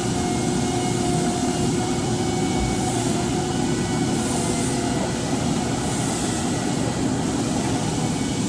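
48-inch Froriep vertical turret lathe running: a steady mechanical hum with a few faint, steady whining tones over it.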